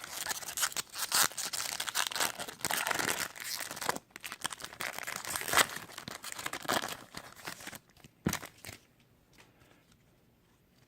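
A hockey card pack's wrapper being torn open and crinkled, a dense crackle for about eight seconds, followed by two short sharp taps.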